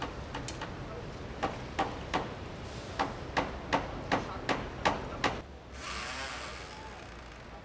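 Hammer blows on the wooden frame of a small street shack: about ten sharp strikes in quick succession, two to three a second, starting about a second and a half in. A short hissing noise follows near six seconds.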